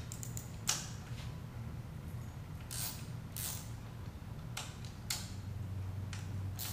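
Socket ratchet working a 10 mm bolt: a handful of short ratcheting strokes at irregular intervals as the fuel-tank mounting bolts are loosened, over a steady low hum.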